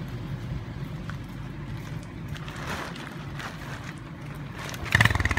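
Small step-through motorcycle's engine idling with a steady pulse, then revving up sharply about five seconds in as it pulls away with a pillion passenger.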